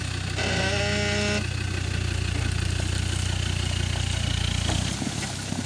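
Land Rover Defender 110 Td5's five-cylinder turbodiesel engine working under throttle as the truck crawls over rough ground, a steady low drone that drops away near the end. About half a second in, a held tone lasting about a second sounds over it.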